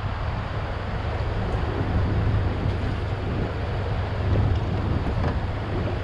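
Wind buffeting the microphone over a steady low drone from a small fishing boat's engine.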